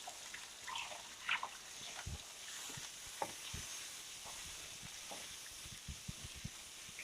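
Spice paste sizzling gently in hot oil in a pot while a utensil stirs it, with scattered light clicks and knocks of the utensil, more of them near the end.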